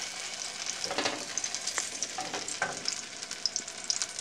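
Oil sizzling and crackling in a frying pan around a tortilla dipped in red chile sauce, just flipped over, with scattered sharper pops.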